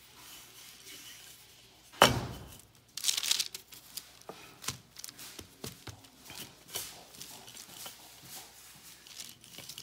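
Wooden rolling pin and hands working pie dough on a floured paper sheet: a sharp knock about two seconds in, then soft rustling, brushing and crinkling as flour is spread and the pin rolls over the dough.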